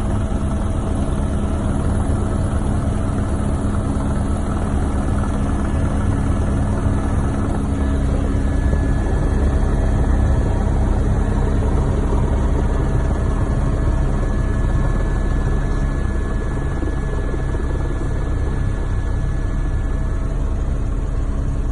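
Helicopter in flight: a steady, unbroken engine and rotor noise, a heavy low rumble with a constant hum over it.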